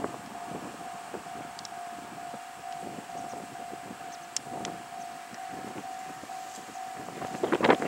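Japanese railway level crossing's electronic warning bell ringing, a single steady tone repeated about twice a second. Near the end, loud rushing, rattling noise builds as the train reaches the crossing.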